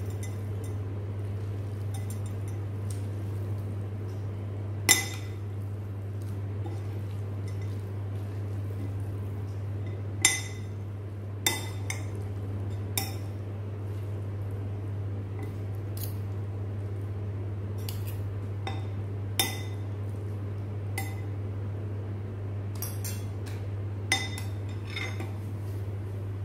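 Metal fork and spoon clinking against a ceramic bowl while stirring and tossing instant noodles, with sharp clinks every few seconds over a steady low hum.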